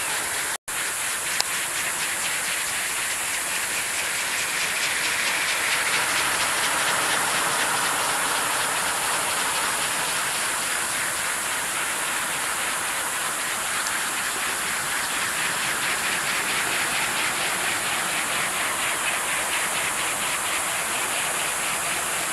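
Steady rushing hiss of wind and small three-bladed wind turbines spinning fast, with a faint rapid flutter running through it. The sound cuts out for an instant about half a second in.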